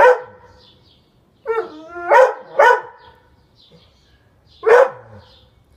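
Dog giving a series of about five short, loud, bark-like 'talking' calls whose pitch bends up and down: one at the start, three close together in the middle, and one near the end. These are the complaining vocalizations of a dog that can't reach its skateboard.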